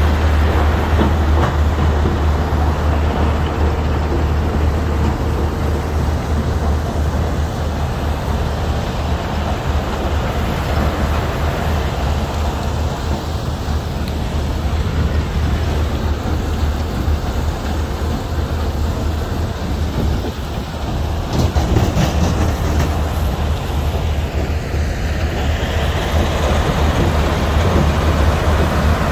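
Lime rock crushing and screening plant running: a McCloskey R155 screener, a Lippmann 4800R impact crusher and ST80TLA radial stacking conveyors. A steady low engine drone sits under the noise of conveyors carrying and dropping crushed rock.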